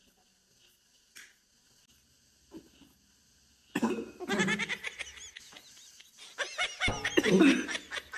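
A few faint clicks, then about four seconds in a person suddenly breaks into loud non-speech vocal sounds with a wavering pitch.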